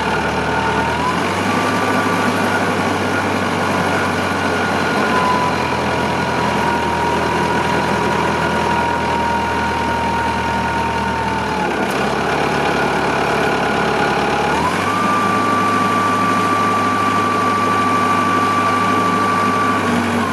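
1974 Allis-Chalmers 840 wheel loader's engine running with a steady whine. The engine and whine step up in pitch about a second and a half in, ease down around five seconds, drop near twelve seconds and rise again near fifteen seconds, as the hydraulics work the engine-puller boom.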